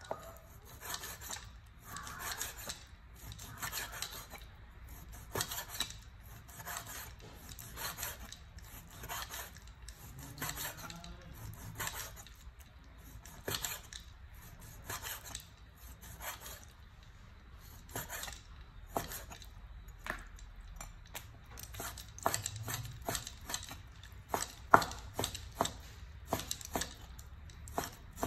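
Cleaver slicing raw meat on a wooden cutting board, a stroke about twice a second with the blade scraping against the board. From about three quarters of the way through, the strokes become sharper, louder chops as the meat is cut down for mincing.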